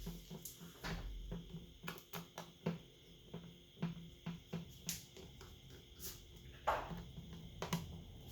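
Irregular light clicks and taps of small tools and parts being handled while a smartphone is taken apart, with one louder, longer scrape about two-thirds of the way through.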